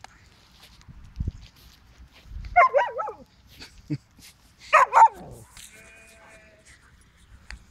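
A dog vocalizing twice during rough play: two short, wavering, yowling calls about two seconds apart, with a few dull thumps before them.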